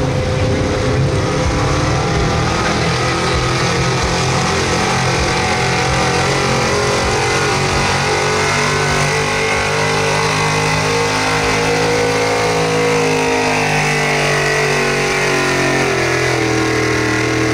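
Small-block gas V8 of a square-body Chevy pulling truck at high revs under full load, dragging a weight-transfer sled. The engine holds a steady high note, then its pitch drops toward the end as the sled bogs it down, and the sound cuts off suddenly right at the end of the pull.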